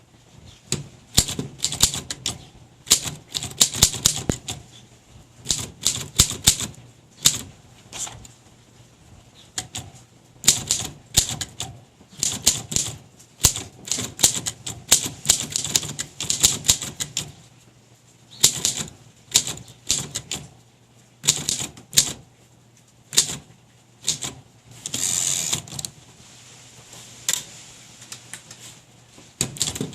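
Keys of a 1933 Smith Corona floating-shift flat-top typewriter being typed in quick irregular bursts of sharp clacks with short pauses between, and one longer rasping sound of about a second near the end.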